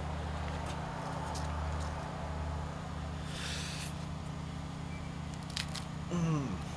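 Overripe banana being peeled by hand, a short tearing rustle of the peel about three seconds in, over a steady low background hum. Near the end a person gives a short falling grunt.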